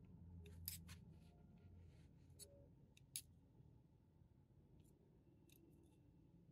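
Faint clicks of metal knitting needles tapping together as a row of knit stitches is worked: about half a dozen short, scattered ticks over a low steady hum.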